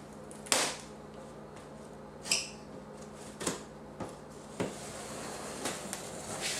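Monitor box contents and packaging being handled: a series of separate sharp knocks and clicks, the loudest about half a second in and just after two seconds. Under them runs a steady low refrigerator hum.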